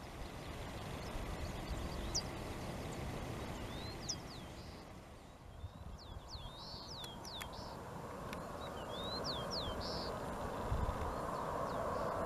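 Outdoor ambience: a bird calls repeatedly in short, high, falling chirps, often two or three together, over a low rumble. Over the last few seconds the distant engine noise of an approaching Boeing 747-400 with Rolls-Royce RB211 engines swells, and a faint steady whine comes in near the end.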